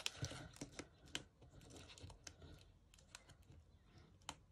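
Faint scattered light clicks and soft rustles of paper being pressed down and handled on a cutting mat.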